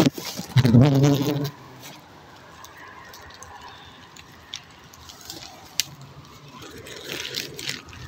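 A man's voice makes a short drawn-out, wordless vocal sound for about a second near the start. After that there is a low outdoor background with a few sharp clicks.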